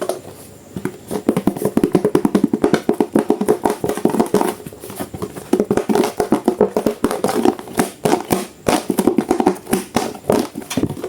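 Music with a fast, rapid tapping percussive beat.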